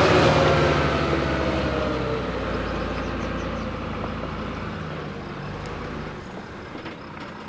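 Heavy off-road truck's diesel engine running, its note dying away steadily over several seconds until only a faint rumble is left.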